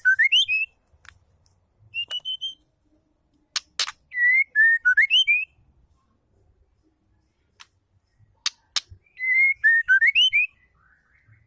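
Female white-rumped shama calling: a short whistled phrase whose notes dip and then glide upward, given three times, with one shorter, higher phrase and several sharp clicks in between.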